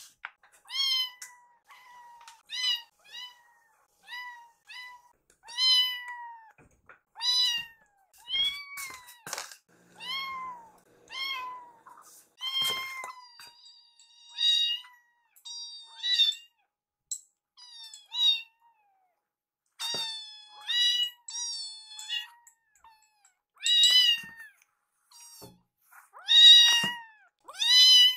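Young kittens meowing over and over, short high mews coming about one or two a second with brief pauses, the loudest near the end. They are kittens calling for food, impatient to be fed.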